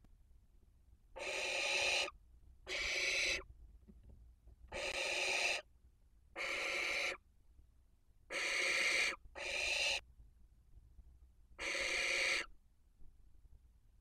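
Barn owls in a nest box giving harsh hissing screeches, seven in a row, each under a second long and a second or two apart.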